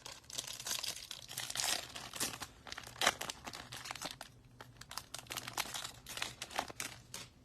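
A foil trading card pack wrapper being torn open and crinkled in the hands, a run of irregular crackling rustles.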